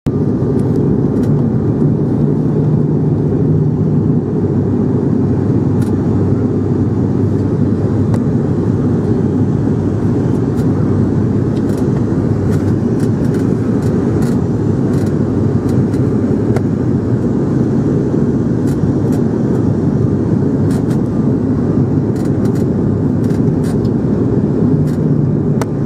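Airliner cabin noise on approach: a steady low drone of engines and airflow, with a low hum that comes in briefly near the start and again near the end.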